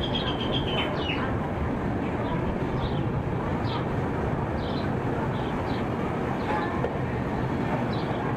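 Gatimaan Express train rolling slowly along a station platform, a steady rolling noise, with short bird chirps now and then.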